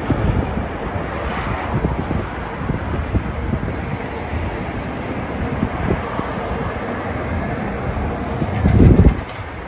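Road traffic noise with wind buffeting the microphone. A louder low rumble swells near the end and then drops off suddenly.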